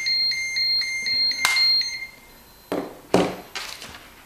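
Radiation detector in alarm mode, beeping rapidly at about four high-pitched beeps a second, set off by the high count from a uranium-glazed Harlequin cup. The beeping stops about two seconds in, and a few sharp knocks follow.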